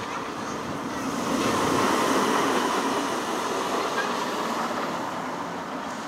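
Roller coaster train running along its track, a rush of wheel noise that swells to a peak about two seconds in and slowly fades.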